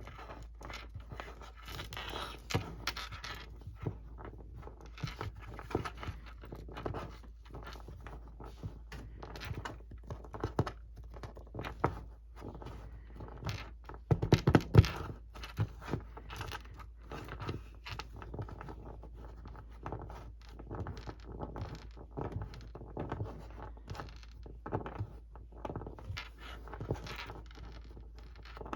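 An eraser being handled and rubbed on a hard surface: irregular scraping and rubbing with scattered small taps, and a louder cluster of knocks about halfway through.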